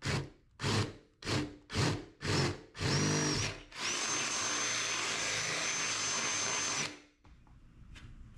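Power drill with a 3/8-inch bit enlarging holes in the sheet-metal body of a Jeep Cherokee XJ: about five short bursts, then a steady run of about three seconds with a high whine, stopping about seven seconds in.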